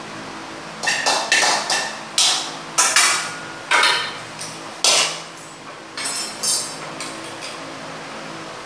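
A metal spoon or ladle clanking against stainless-steel pots and pans. About ten irregular clanks, some with a brief ring, come in the first five seconds, followed by a few lighter clinks and then a quieter stretch near the end.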